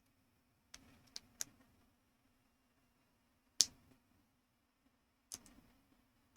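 Plastic building blocks being handled and pressed together: a few light clicks about a second in, a sharper snap at about three and a half seconds, and another click near the end.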